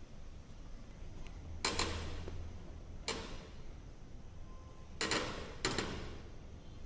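Four short, sharp knocks and slaps, about one and a half, three, five and five and a half seconds in: hands and feet being planted on a turf gym floor and a flat bench while setting up and starting decline push-ups.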